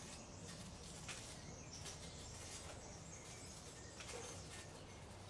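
Faint outdoor ambience: a low, steady background with a few soft ticks and rustles.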